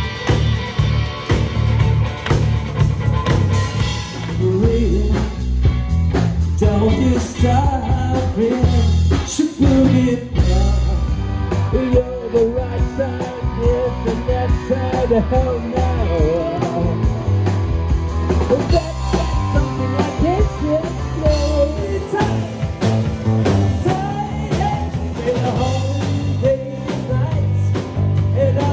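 Rock band playing live: electric guitar, bass guitar and drum kit, with a singer coming in about four seconds in.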